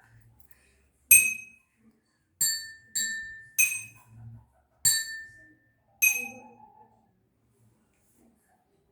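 Two drinking glasses holding different amounts of water struck in turn, six times in all, each ringing with a bright clear tone. The two glasses ring at two distinct pitches; the glass with less water rings higher.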